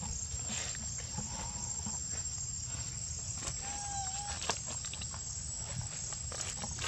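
Insects droning in one steady high tone over outdoor background, with a few faint clicks and one short clear pitched call about halfway through.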